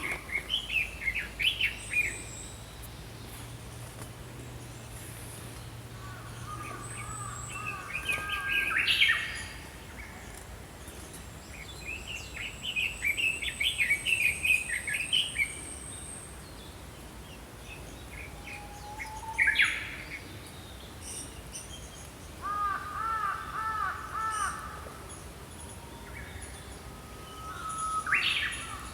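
Small songbirds singing and calling in separate bouts of quick, high chirping phrases, with short pauses between them. The longest bout comes about halfway through, and a run of repeated looping notes follows near twenty-three seconds.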